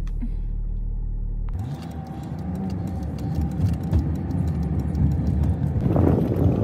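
Steady low hum inside a truck's cabin. About a second and a half in, it changes abruptly to a vehicle driving on wet city streets: engine and tyre noise, a brief rising engine tone, and many light ticks. Near the end it turns rougher and gustier, like wind on the microphone.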